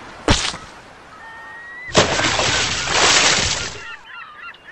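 Birds calling with wavering chirps in a beach sound-effect track. A sharp whoosh comes a fraction of a second in, and a loud rush of noise runs from about two seconds in for nearly two seconds.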